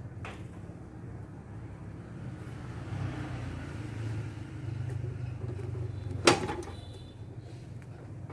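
Heter 400A welding machine giving a steady low hum, with one sharp knock about six seconds in.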